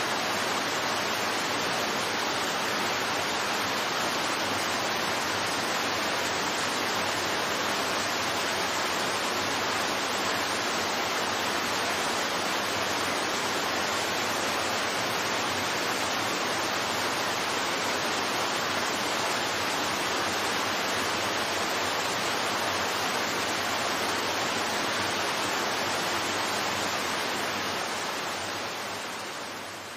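Steady rushing of water pouring down the Cheonggyecheon stream's waterfall, an even unbroken roar that fades out over the last couple of seconds.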